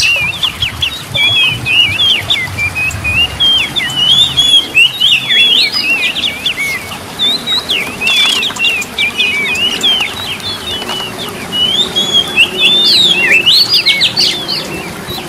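Oriental magpie-robin (kacer) singing vigorously: a fast, unbroken stream of varied whistles, chirps and sweeping notes.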